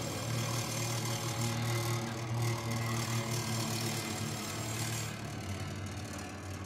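Noise-music soundtrack: a steady low hum with a few higher tones layered on it and a hiss above, like an engine running. It grows quieter over the last second or two.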